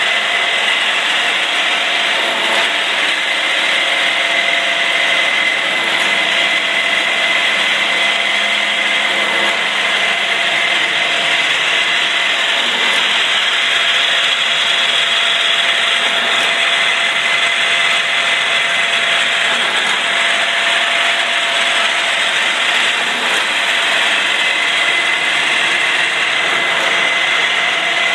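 Davenport multi-spindle automatic screw machine running steadily: a dense, even mechanical clatter with a steady high whine.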